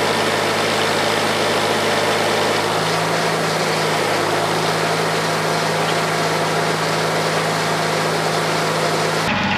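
Homemade bandsaw sawmill running steadily, with a steady mechanical hum; its pitch shifts about three seconds in, and the sound changes abruptly near the end.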